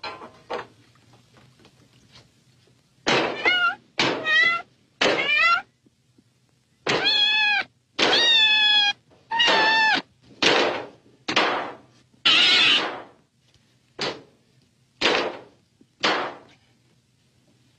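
A cat meowing over and over, about a dozen meows, some short and some drawn out and wavering in pitch.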